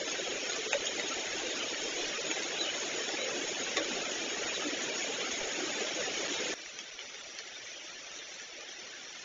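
A steady hiss of outdoor noise on the microphone. About six and a half seconds in it drops suddenly to a quieter, duller hiss.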